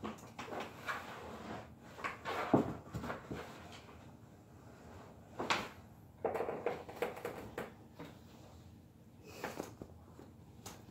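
Rummaging and handling noises: irregular knocks, scrapes and fabric rustling as an olive-drab army jacket is pulled out and unfolded, with a sharper knock about two and a half seconds in.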